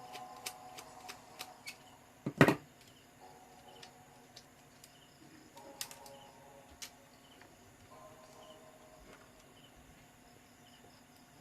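Small scattered clicks and taps from handling laptop parts during disassembly, with one sharp knock about two and a half seconds in. Faint chirping sounds come and go in the background.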